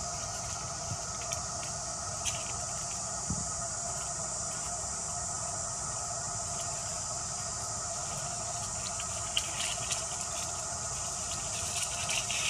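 Steady chorus of forest insects: a continuous high buzz with a lower drone beneath it. A few faint clicks and crackles come near the end.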